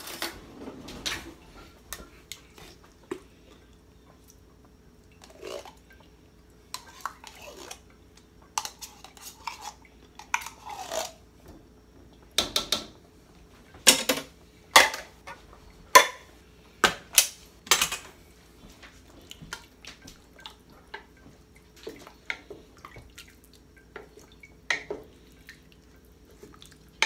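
Spoon scraping tomato paste out of a small can and knocking it into a pot of chili, with a run of sharp clinks against the can and pot about halfway through, then the thick chili being stirred.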